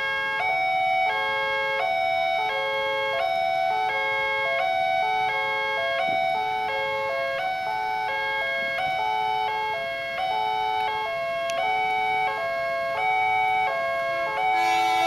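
Electronic warning alarm of a railway level crossing sounding with the barriers down: alternating high and low electronic tones repeating steadily and without a break, warning of an approaching train.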